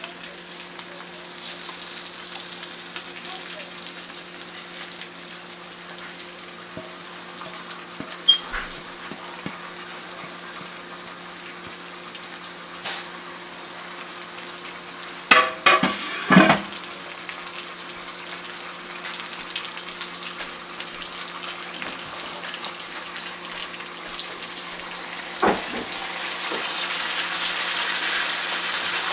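Food sizzling and frying in a pan, with a few sharp clanks of a utensil against the pan about halfway through. The sizzling grows louder near the end.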